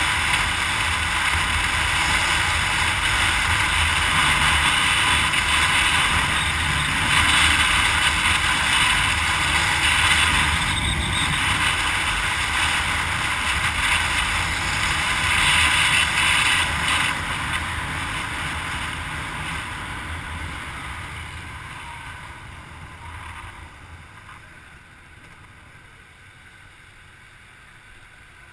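Wind rush and road noise of a vehicle travelling at highway speed, a loud, steady rushing. From about 17 s in it fades steadily as the vehicle slows down on the exit ramp, and it is much quieter near the end.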